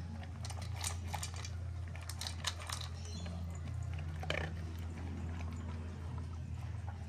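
Husky eating chopped sausage from a stainless steel bowl: chewing and crunching with irregular sharp clicks, most of them in the first half.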